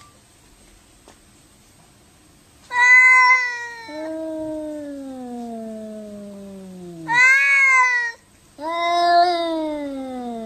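A domestic cat yowling: about three seconds in, one long drawn-out call that slowly falls in pitch, then a short call and another long falling one.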